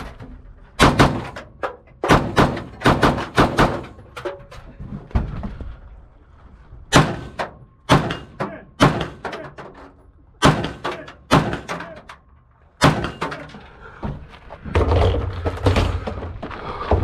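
Gunshots fired close to the microphone: about seventeen sharp reports at an irregular pace, several in quick pairs, each with a short echo. Near the end they give way to rough, rustling movement noise and footsteps.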